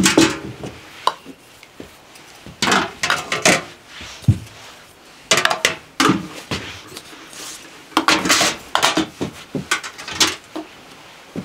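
Glass jars being set down into galvanized metal buckets: irregular clinks and knocks of glass against metal, coming in several clusters.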